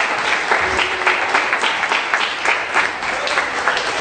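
Wedding congregation applauding: many people clapping at once, in a dense, steady patter.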